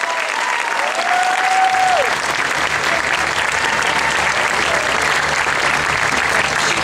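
Audience clapping and cheering, with one long whoop about a second in.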